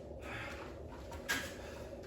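A person breathing hard from exertion during an exercise set, with a breath roughly every second and a sharper exhale about a second and a quarter in.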